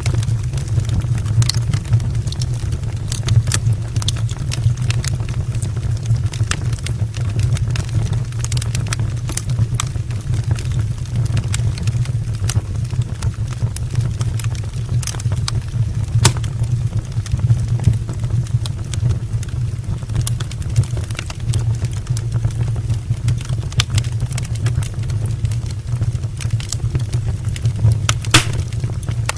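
Wood fire burning in an open fireplace: a steady low rumble of the flames, with frequent sharp crackles and pops from the logs at irregular intervals.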